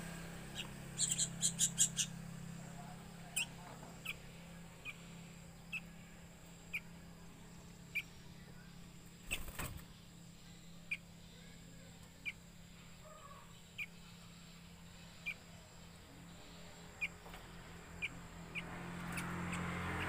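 Young sooty-headed bulbuls giving short, high begging chirps about once a second, with a quick run of five sharper calls near the start. A single click about halfway through, over a steady low hum.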